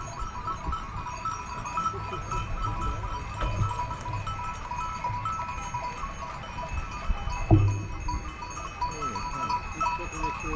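Many sheep bells ringing and clanking as a flock moves, with sheep bleating now and then. A single thump about seven and a half seconds in.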